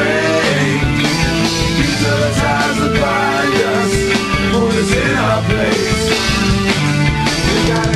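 Rock band track with drums and guitar playing an instrumental passage between sung lines.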